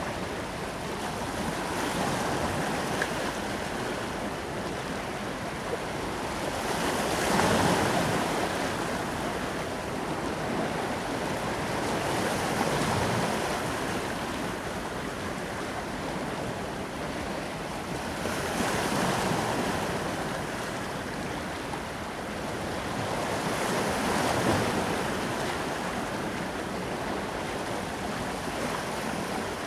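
Ocean waves breaking on a beach: a steady wash of surf that swells with a breaking wave about every five to six seconds.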